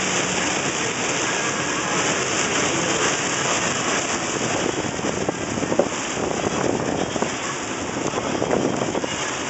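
Heavy storm rain and wind hitting a car, heard from inside the cabin: a steady, dense rush of noise.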